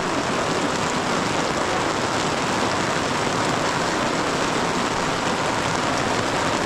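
Steady rain falling, an even hiss with no break or change.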